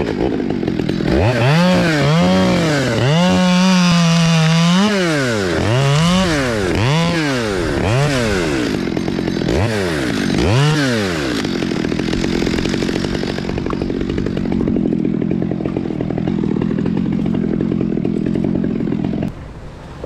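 Chainsaw revved in repeated rising-and-falling bursts, with one longer hold at full throttle, for about the first ten seconds. It then runs at a steady, rougher pitch as it cuts through a limb, and cuts off sharply near the end.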